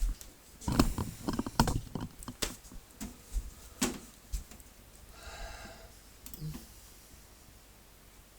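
A quick run of sharp clicks and knocks over about four seconds, then a faint short sound and one last knock, in a small room.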